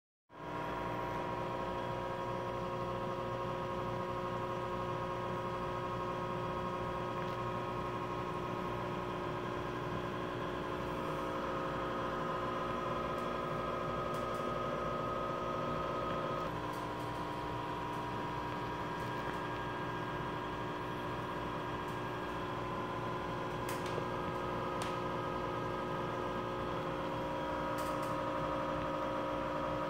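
Aquarium air pump humming steadily, with several held tones and a few faint clicks in the second half.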